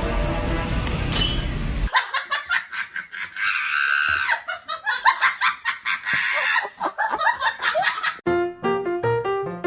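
Music stops abruptly about two seconds in. About six seconds of rapid, high, laughter-like bursts follow. Piano music starts near the end.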